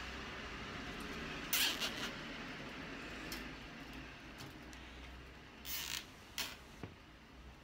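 Plastic cable ties being threaded through a wire lattice panel and pulled tight: two quick ratcheting zips, one about a second and a half in and one near six seconds, with a few light clicks of the metal grid.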